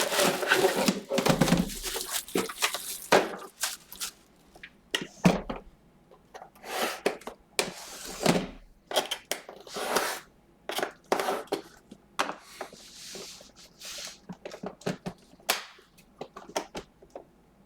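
Box packaging being opened and handled by hand: an irregular run of rustles, scrapes and light knocks, busiest in the first few seconds and sparser towards the end.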